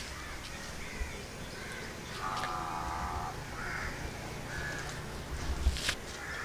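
A crow cawing: one long call about two seconds in, then two shorter calls. Near the end comes a single sharp tap.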